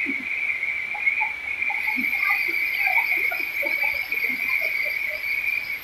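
Forest insects droning steadily at a high pitch, with a second, even higher-pitched insect joining about two seconds in.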